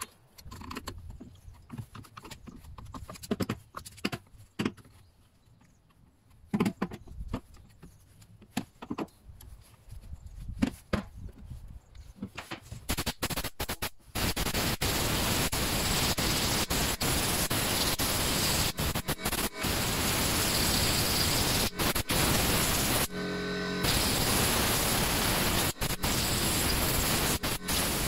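A hand tool scraping and picking caked dirt off a Stihl MS 231 C chainsaw's clutch side, a scatter of clicks and short scrapes. About halfway in, a steady loud hiss suddenly takes over, broken by many brief dropouts.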